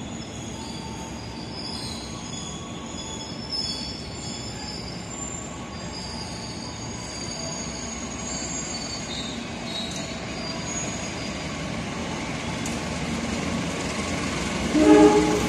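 Wheels of a passenger train hauled by a CC 201 diesel-electric locomotive squealing as it rolls in over curved turnouts. The high squeals shift in pitch over a low rumble that grows steadily louder as it approaches, and a brief louder pitched sound comes near the end.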